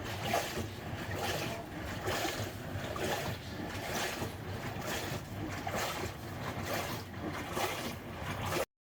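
LG top-loading washing machine in its wash cycle, its pulsator churning the water in repeated sloshing surges; it is running normally with no PE error after a new water-level sensor was fitted. The sound cuts off suddenly near the end.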